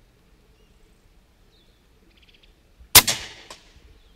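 Air Arms S510 Ultimate Sporter pre-charged pneumatic air rifle firing a single shot about three seconds in: a sharp crack that rings off briefly, followed by a fainter knock about half a second later.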